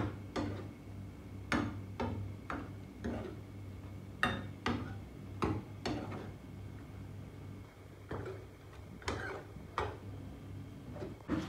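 Steel ladle clinking and scraping against a frying pan as chicken pieces are stirred, with irregular knocks about once or twice a second over a steady low hum.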